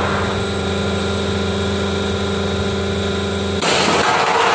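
100-ton hydraulic press brake running with a steady hum from its pump motor while it bends a steel door-frame section. About three and a half seconds in, a louder rushing noise sets in as the bent sheet is drawn out.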